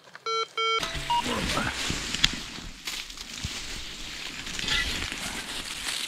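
Metal detector sounding two short electronic beeps at the start, a target signal over buried metal. Then a small shovel digging into forest soil: rough scraping and rustling of earth and leaf litter, with a sharp click a little after two seconds in.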